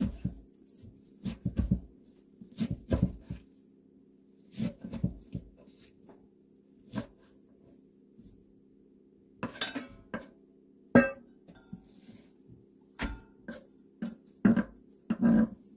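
Kitchen knife chopping blanched chwinamul greens on a wooden cutting board: irregular runs of knocks with pauses between them, and one ringing metallic clink partway through.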